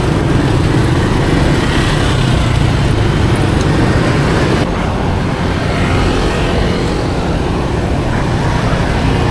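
Road traffic and wind rushing over the microphone of a bicycle moving through city traffic: a steady noisy rush with no distinct engine note, a little quieter from about halfway through.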